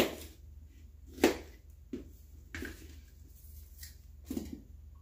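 A kitchen knife knocking on a plastic cutting board while an onion is cut, with five short, irregular knocks. The loudest knocks come at the start and about a second in.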